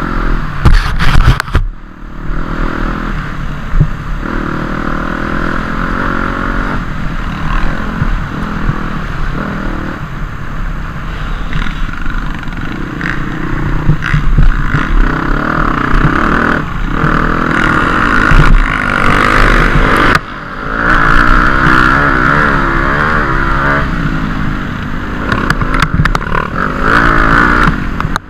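Dirt bike engine running hard under throttle, its pitch rising and falling as the rider works the throttle and gears, dropping off briefly twice. Scattered knocks and clatter from the bike over rough ground.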